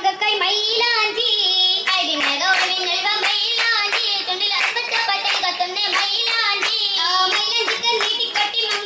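Female voices singing an Oppana, a Mappila wedding song from Kerala, with hand-clapping in time to the song.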